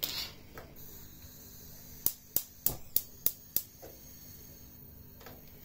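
Gas hob's spark igniter clicking six times in quick succession, about three a second, as the burner that was left off is lit.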